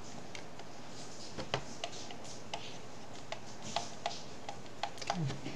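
Stylus tip tapping and clicking on a tablet screen during handwriting: a string of light, irregular ticks over a steady faint hiss.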